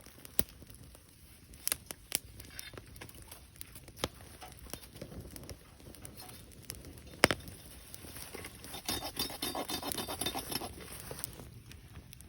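Wood fire crackling, with scattered sharp pops and a denser run of crackling from about nine to eleven seconds in.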